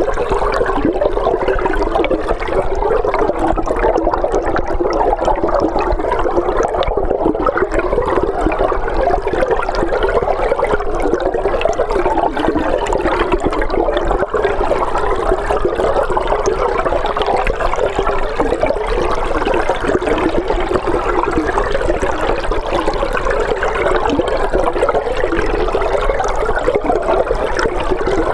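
River water flowing, heard underwater through a hydrophone in the Skora river: a steady, unbroken rushing noise, with a low steady hum underneath.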